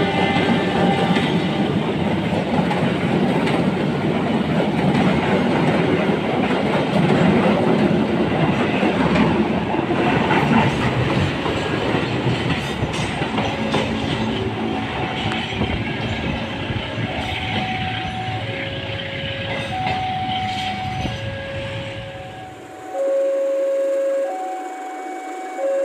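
Passenger train's economy coaches rolling past close by, the wheels running loud on the rails. A level-crossing warning alarm alternates between two tones behind it. After about 23 seconds the train noise cuts off, and the two-tone crossing alarm goes on alone, louder.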